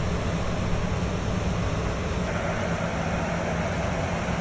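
Harvest machinery engines running steadily: an even, low drone with a constant hum.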